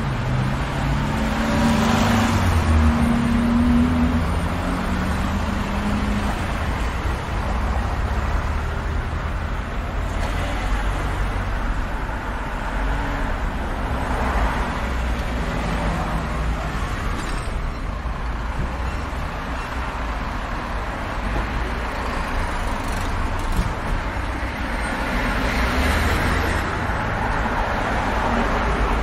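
Busy street traffic: a steady road rumble with several cars passing by one after another. A heavier engine's low note is heard during the first few seconds.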